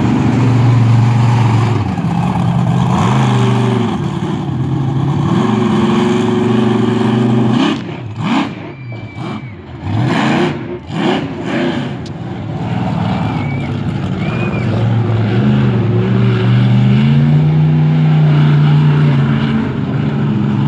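The Raminator monster truck's engine revving hard as the truck drives onto and over a row of cars. About eight seconds in, the throttle drops back to a few short blips while the truck climbs onto the cars, then it revs up again and holds high.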